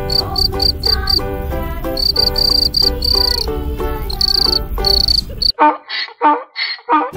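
Field cricket chirping: short, high chirps about four a second in runs with brief pauses, over quieter background music. About five and a half seconds in it cuts off suddenly and a run of short repeated pitched calls begins.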